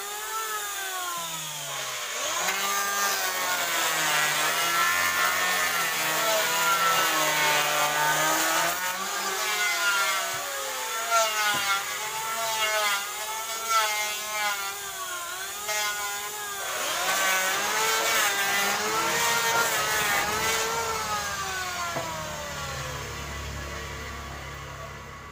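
Power saw running and ripping lengthwise through a large wooden slab. Its pitch keeps dipping and recovering as the cut loads it, and the sound fades out near the end.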